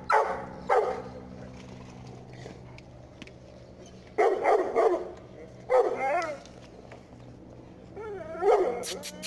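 Bully Kutta (Pakistani mastiff) barking in short bursts: twice at the start, a run of barks from about four to six seconds in, and again near the end.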